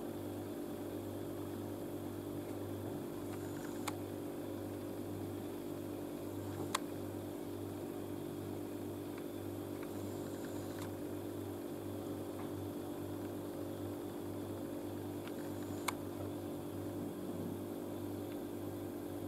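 Quiet, steady low hum of room tone, with three faint clicks, about 4, 7 and 16 seconds in.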